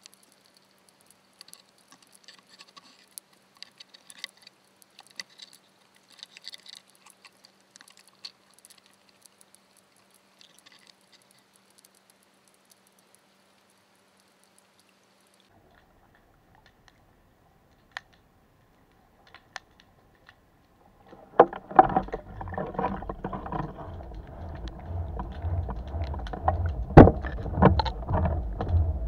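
Underwater crab wheel: first faint scattered clicks and crackles from the water at the bottom, then, about twenty seconds in, a loud rough rumble with knocks as the wheel is hauled up by its rope and water rushes past the camera housing.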